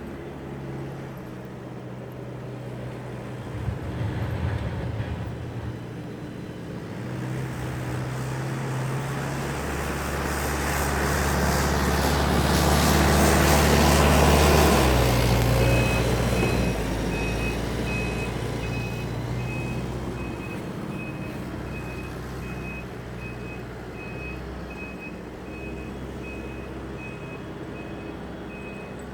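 Paload PB70 backhoe loader's diesel engine running, its revs rising and the sound swelling to a peak about halfway through, then easing off. About halfway in, the reversing alarm starts beeping steadily at an even rate.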